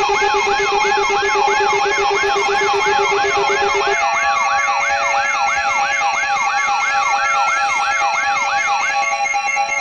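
Electronic alarm siren of a mock emergency alert: a fast sweeping wail, about two and a half rise-and-fall sweeps a second, over a stack of steady held electronic tones. A low pulsing buzz beneath stops about four seconds in, and the sweeping stops near the end while the steady tones carry on.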